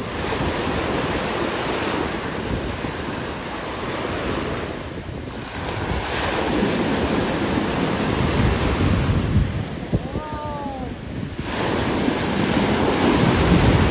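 Sea waves breaking and washing through the shallows in repeated surges, with wind buffeting the microphone.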